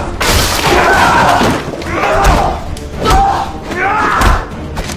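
Scuffle with repeated heavy thuds of bodies slamming into each other and furniture, mixed with shouting and grunting.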